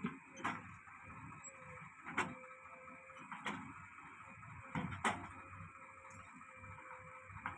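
Diesel engines of a JCB 3DX backhoe loader and a tractor running steadily, with a faint wavering whine. About six sharp metallic clanks come at irregular intervals as the loader bucket and its linkage work the soil.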